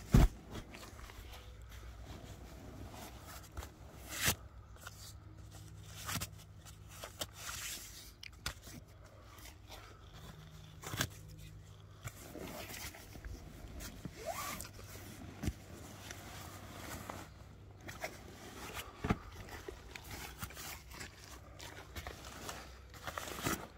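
Heavy cotton canvas of a bell tent being pulled and unrolled by hand: scattered rustles, scrapes and soft bumps of the fabric, with a couple of short quick rasps about two-thirds of the way through.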